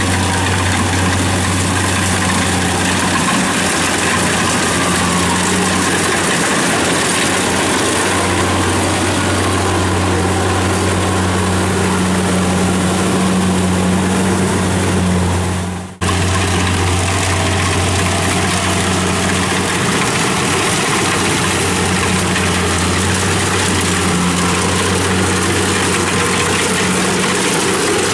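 Diesel engines of a Kubota rice combine harvester and a small tracked rice carrier running steadily while working the paddy. The sound breaks off for an instant about halfway through.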